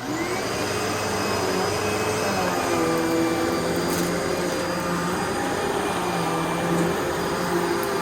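2008 Hoover Legacy Pet Rewind upright vacuum cleaner switched on, its motor spinning up with a quickly rising whine, then running steadily at full speed.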